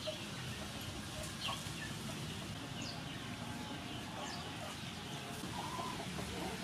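Birds calling over a steady outdoor background: a few short, high falling chirps spread through, and lower clucking calls toward the end.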